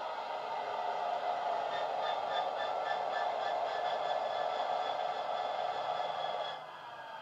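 Model-railway sound decoder playing a Class 66 diesel locomotive's engine sound through a small tablet speaker, with the locomotive standing still. The engine sound runs steadily, then steps down abruptly and gets quieter near the end.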